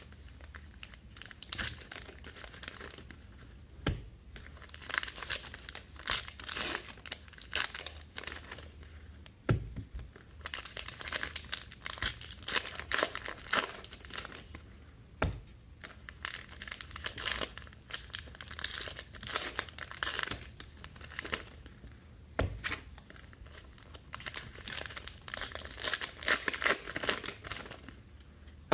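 Topps Allen & Ginter baseball card pack wrappers being torn open and crinkled by hand, in repeated bursts pack after pack, with a few soft knocks in between.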